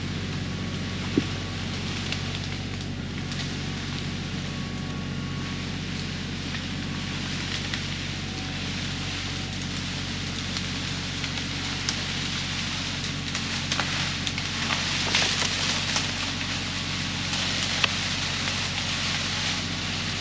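An engine running steadily at idle, with constant crackling and scattered small snaps over it.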